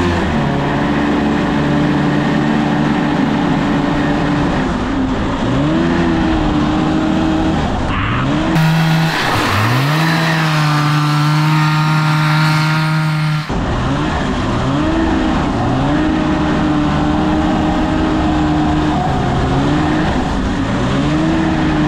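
Kawasaki 440cc two-stroke snowmobile engine driving a go kart at high revs, holding steady for seconds at a time, then dropping off and climbing again several times, with wind noise on the microphone. The engine revs high while the kart has almost no power, which the drivers put down to a probably cooked, slipping drive belt and gearing that is too tall.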